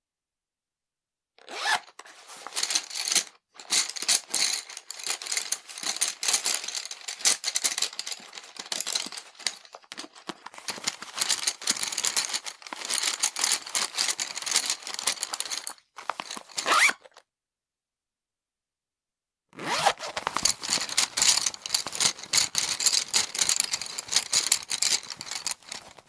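Hands rummaging in a zippered pencil case full of pencils: dense rustling, rattling and rasping zip noise in long spells. It starts after a short silence and pauses for a couple of seconds about two-thirds of the way through.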